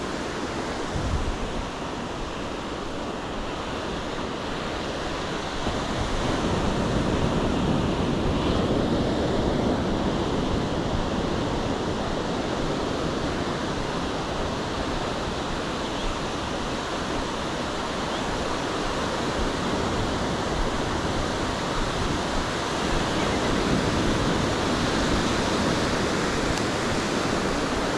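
Ocean surf breaking and washing up the beach, with wind rushing over the microphone; the wash swells louder a few times. A short low bump about a second in.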